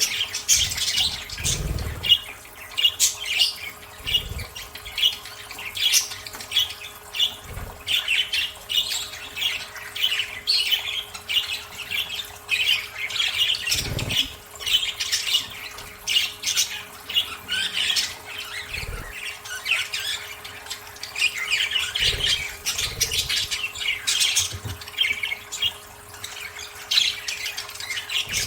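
Budgerigars chattering and squawking without a break in quick, overlapping high chirps. A few short, soft low thuds come through now and then.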